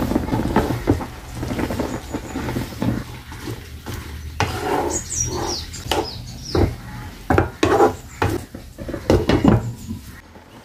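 A wooden spatula stirs and scrapes green chillies and sorrel leaves in a nonstick frying pan, knocking against the pan again and again, over a steady low hum. A glass pan lid is set back on the pan near the end.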